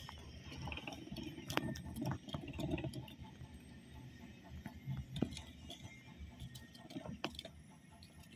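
Faint, irregular clicking and rustling from Roborovski dwarf hamsters: one running in a plastic exercise wheel, another moving about in wood-shaving bedding.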